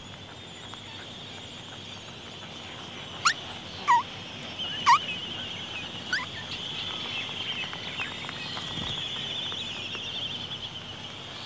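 Calls of Laysan albatrosses: four short, loud squeals that glide up or down in pitch, between about three and six seconds in, over a steady, wavering high trill.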